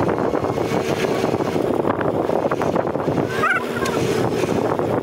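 An engine idling steadily, with a stream rushing and wind on the microphone.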